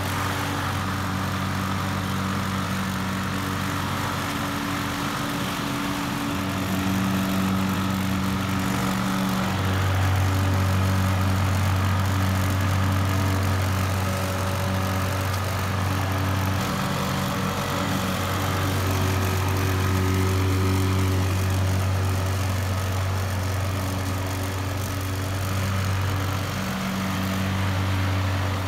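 Gas-powered walk-behind lawn mower engine running steadily while cutting grass.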